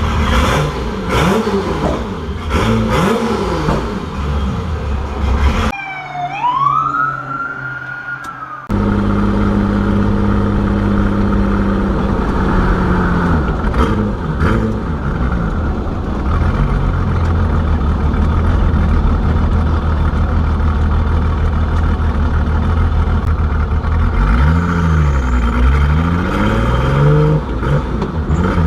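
Turbocharged BMW E30 engine running while driving, its revs rising and falling as it accelerates and lifts off. A few seconds in, the sound briefly drops and a high whistle rises and then falls, before steady cruising resumes; the revs swing up and down again near the end.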